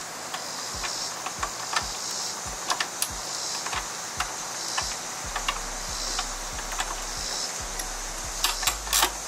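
Scattered light clicks and taps of hands and a small tool working on wiring at a car battery terminal, with a cluster of louder clicks near the end. Under them runs a steady high hiss that swells and fades.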